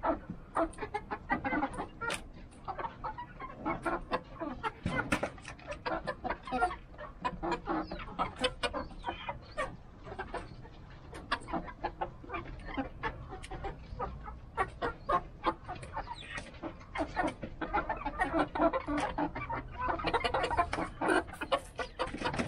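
A small mixed-breed flock of chickens clucking almost continuously while they feed, with many short, sharp taps of beaks pecking at the ground mixed in.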